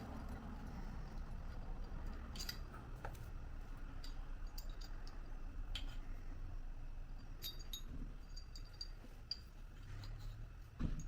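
Scattered light metallic clicks and clinks of hand tools and shock hardware being handled, over a low steady hum, with one louder dull knock near the end.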